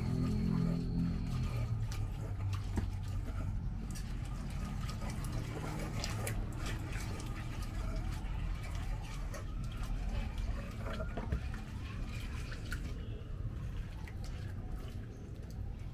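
Pestle grinding and stirring a wet sauce paste in a stone mortar (cobek), with water poured in from a plastic jug, giving wet squelching and scattered scraping clicks against the stone.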